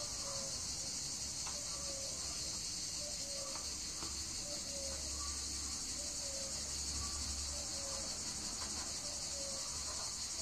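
Steady high-pitched drone of an insect chorus, with a few faint light clicks.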